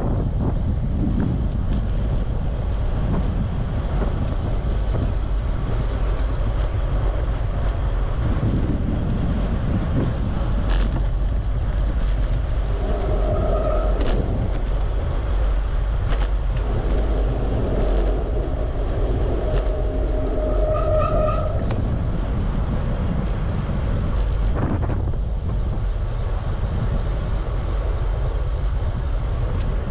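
Steady rushing noise of a bicycle ride: wind on the camera microphone and rolling noise. A few short pitched sounds come around the middle.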